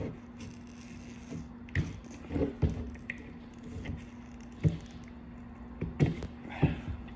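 Metal hand tool being twisted and pressed into the soft eye of a coconut: scattered short scrapes, creaks and clicks, the sharpest near the end, over a steady low hum.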